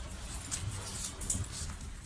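Light taps of a small puppy's paws running on wooden porch boards, over a low background rumble.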